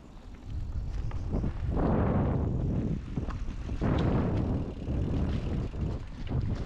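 Mountain bike riding down a dirt trail: tyre rumble and rushing air, swelling twice, with scattered sharp knocks from the bike over bumps.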